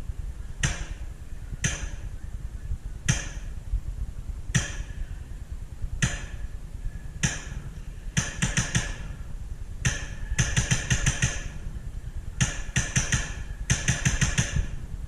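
Airsoft rifle firing: single shots about a second apart, then several rapid strings of shots in the second half, over a steady low rumble of wind and handling on the microphone.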